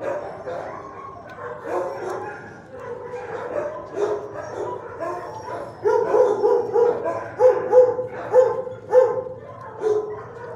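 Shelter dogs barking in the kennels, a loose mix of barks at first, then a regular run of loud barks, about two a second, from a little past halfway.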